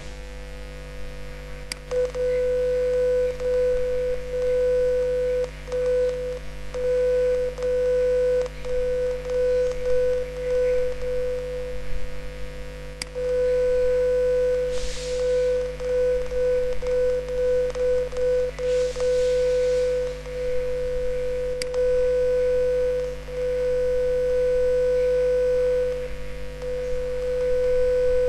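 A computer-generated 500 Hz sine tone from two simulated speakers, its loudness repeatedly swelling and dipping as the listener point is dragged through the interference pattern: louder where the two waves arrive in phase, softer where they arrive in opposite phase. A low steady hum runs beneath it.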